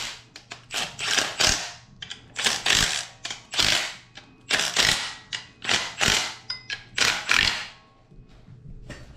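Milwaukee cordless impact wrench hammering bolts snug on an engine's accessory-drive brackets, in about six short bursts of roughly half a second each with brief pauses between, with small clicks of the tool and bolts in the gaps.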